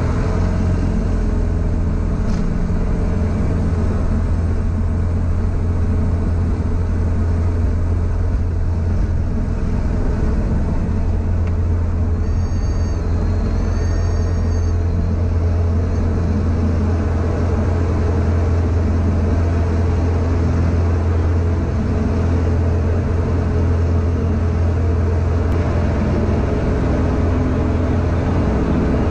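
The DA40's 180 hp Lycoming IO-360 four-cylinder engine and propeller at full takeoff power: a loud, steady drone with a strong low hum through the takeoff roll and into the initial climb.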